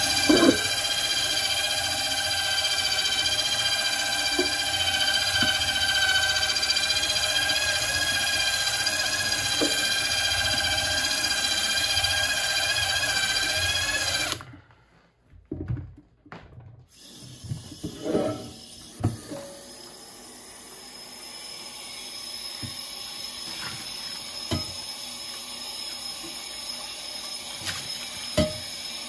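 Cordless drill spinning a 2-inch medium Drillbrush scrub brush against a stainless steel frying pan coated with gritty cleaning compound: a steady motor whine for about fourteen seconds, then it stops. A few knocks follow, then a tap runs water into the steel sink as the pan is rinsed.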